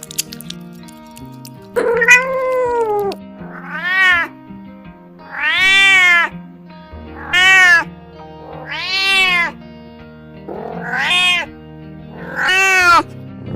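A cat meowing seven times, each meow a drawn-out call that rises and falls in pitch, coming about every one and a half to two seconds. Background music with held notes plays underneath.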